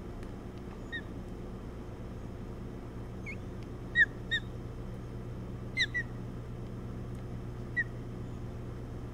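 Ospreys at the nest giving short, clear, slightly falling chirps, single or in quick pairs, about seven over several seconds. A steady low hum runs underneath.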